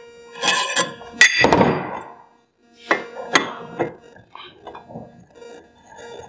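Metal parts of a clutch spring compression tool clinking and knocking against a Polaris RZR secondary clutch as the tool's sleeve and T-handle are fitted over its rod. There are a handful of sharp metallic clinks that ring briefly, the loudest about a second in, with fainter clicks later.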